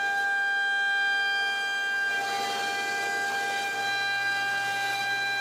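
CNC router spindle running with a steady high-pitched whine as the bit mills a wood panel, with cutting noise rising about two seconds in.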